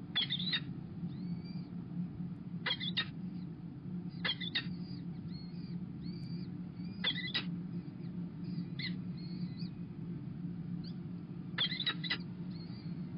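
Downy peregrine falcon chicks begging while fed, in short bursts of high-pitched cheeps about six times, a second or two apart, over a steady low hum.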